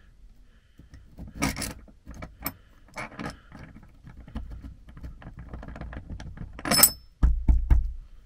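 A long steel bolt turned by hand through a metal washer on a timber beam, being threaded down toward a connector sleeve below: scattered metallic clicks, scraping and jangling, with one bright ringing clink about two-thirds of the way in, followed by a few dull low thumps.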